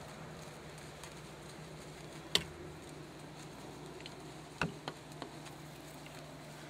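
A compound bow being handled in a tree stand: a few sharp clicks and knocks, the loudest about two and a half seconds in and a quick pair near five seconds, over a steady low hum.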